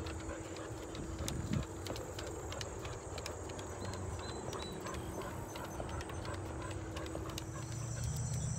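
Footsteps on the wooden planks of a boardwalk: an uneven string of hollow knocks and clicks.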